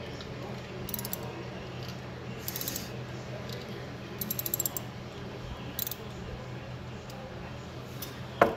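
3/8-inch socket ratchet clicking in several short, rapid runs as the transmission drain plug is turned back in, over a steady low hum. A single sharp knock comes near the end.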